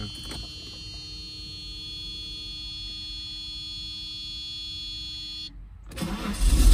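Car warning buzzer sounding a steady, unbroken electronic tone for about five and a half seconds, then cutting off abruptly. About a second later a loud low rumble sets in near the end.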